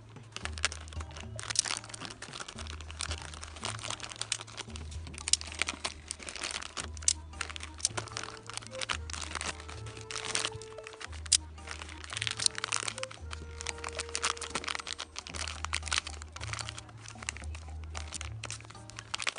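Background music with a repeating bass line, over packaging being handled: many irregular crinkles and crackles.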